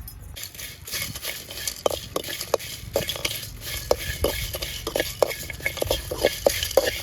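A metal spoon stirring and scraping food in a pan, clinking against it several times a second over a steady sizzle that starts about half a second in.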